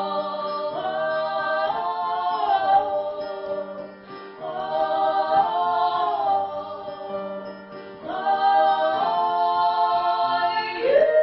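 Live acoustic music: harmonised singing of long held notes that slide between pitches, in three phrases separated by short dips about four and eight seconds in.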